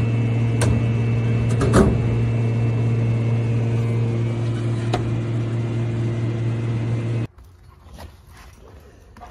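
Steady electric hum of a robotic vending machine while its lift carries a bottle, with a few light clicks and knocks. The hum cuts off suddenly about seven seconds in, leaving only faint background noise.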